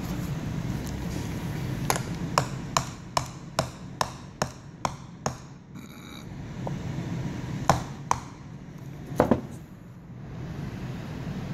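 Sharp clicks from a metal pivot rod being worked into a new sun visor's end: a steady run of about nine, roughly two to three a second, then after a pause a few louder single clicks and a double click.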